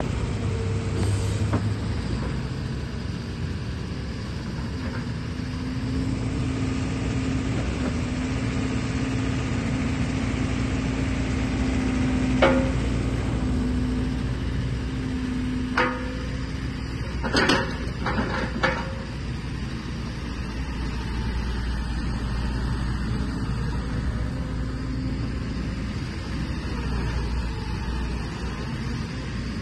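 JCB JS131LC tracked excavator's diesel engine running under hydraulic load as the boom and grab are worked, with a steady droning tone for a stretch. Several sharp clanks come about halfway through.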